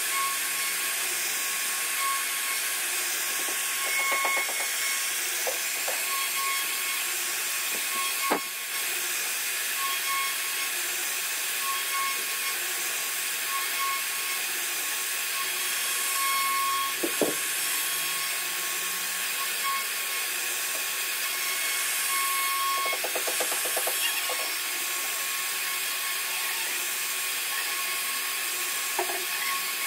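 CNC router spindle carving a decorative relief into a wood panel: a steady high whine and hiss of the cutter in the wood, with a few sharp clicks and short rattling patches.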